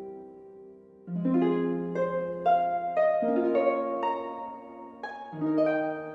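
Calm background music of plucked-string notes in rising arpeggios. Each phrase starts on a low note, about every two seconds, and the notes ring out and fade.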